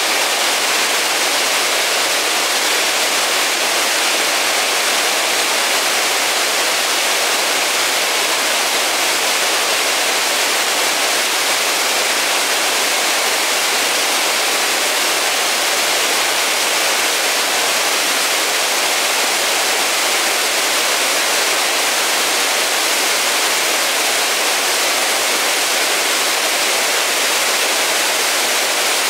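Rushing water, a steady even hiss that does not change or break.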